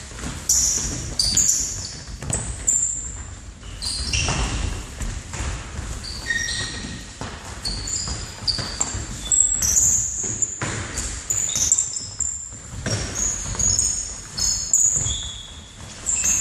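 Indoor football being played in a sports hall: the ball thuds off feet, floor and walls at irregular intervals, with many short high squeaks of sneakers on the hall floor, all echoing in the large room.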